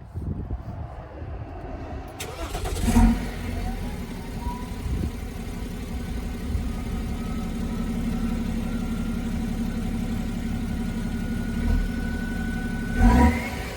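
BMW X5 35d (E70) 3.0-litre twin-turbo inline-six diesel, deleted and tuned with a stock muffler, catching and firing about three seconds in, then settling to a steady idle. A thin turbo whistle rises in pitch over the idle. A brief rev blip comes near the end.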